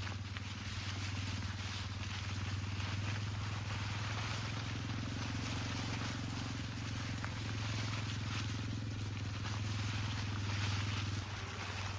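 A steady low engine-like hum with an even pitch and a hiss above it, dropping in level about eleven seconds in.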